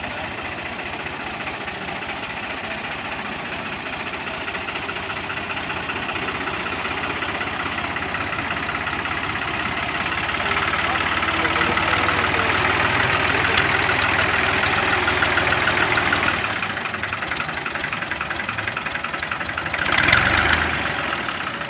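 Ghazi 480 tractor's three-cylinder diesel engine running as the tractor reverses and turns, growing gradually louder towards the middle and easing off after about sixteen seconds. A brief louder burst comes near the end.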